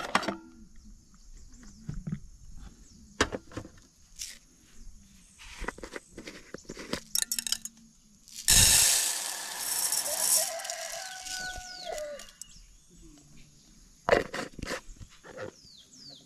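Scattered clinks and knocks of camp cooking, with a sudden loud hiss about eight seconds in that fades over a few seconds. A rooster crows partway through.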